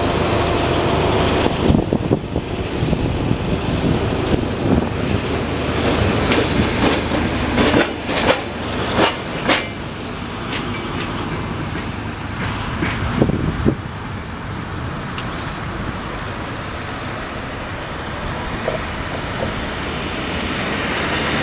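A VR train passing over a level crossing: a steady rumble with the clacking of its wheels over the rails. The clacks come thick and fast in the first half, then thin out as the train goes by.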